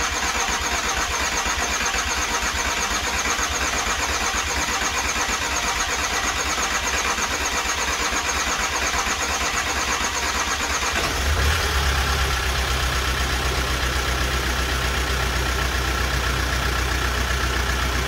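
Volkswagen Crafter's freshly fitted 2.0 turbo-diesel engine starting up and running. About eleven seconds in, a steady high whine stops and the sound settles into a steady deep idle hum.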